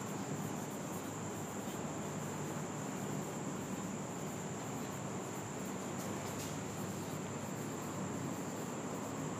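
Quiet room tone: a steady hiss with a thin, continuous high-pitched whine held at one pitch.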